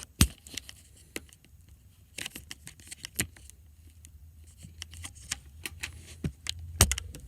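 Scattered light clicks, taps and rattles of objects being handled, with one sharp knock just after the start, over a faint low hum.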